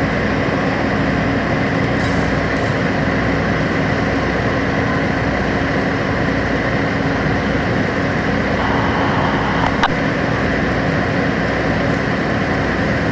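Fire apparatus engine running steadily with a constant low hum, with a short click near the end.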